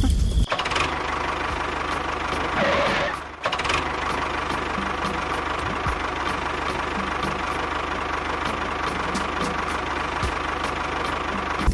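Small electric motor of a DIY mini tractor running steadily with a gear whine; about three seconds in it rises in pitch, then briefly cuts out and carries on.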